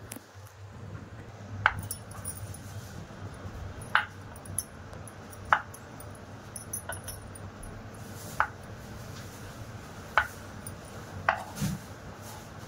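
Kitchen knife cutting a block of paneer into cubes on a wooden cutting board: about six sharp taps as the blade goes through and knocks the board, a second or two apart.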